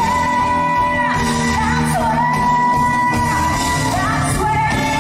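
A woman singing live over band accompaniment, holding long high belted notes with short pitch slides between them, about a second and two seconds in and again near the end.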